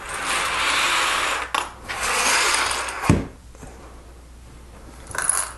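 Small plastic Lego pieces rattling as a hand sifts through a loose pile, in two spells, followed by a single knock about three seconds in as a piece is set down.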